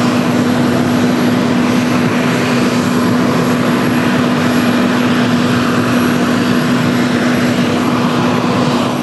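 Steady aircraft running noise on an airport apron: an even rushing hum over a constant low drone.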